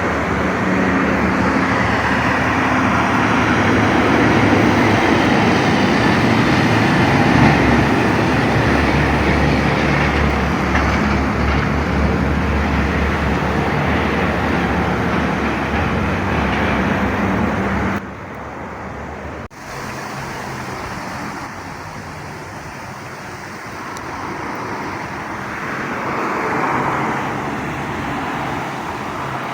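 Heavy truck engines running with a steady low drone. About two-thirds of the way through, the sound cuts abruptly to a second, quieter engine that swells briefly near the end.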